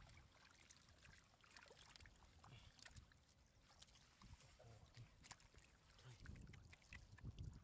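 Faint splashing and dripping of muddy water as a woven bamboo basket scoops fish from a shallow puddle, with scattered small ticks of water and handling. Louder low thumps and rustling near the end as the basket is lifted.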